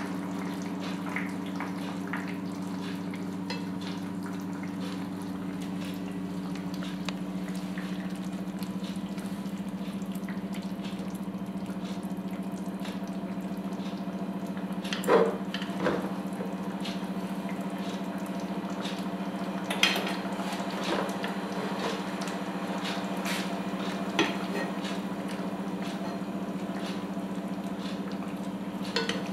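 Potatoes simmering in water in a pan: a steady watery hiss over a constant low hum. A few short, light knocks sound about halfway through and later, as pieces of flounder are laid into the pan.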